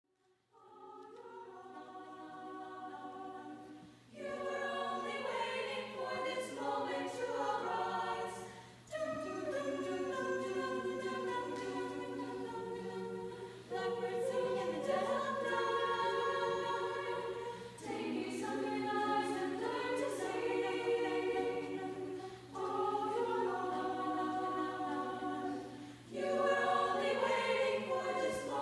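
High school choir singing in sustained phrases a few seconds long, with short breaks between phrases.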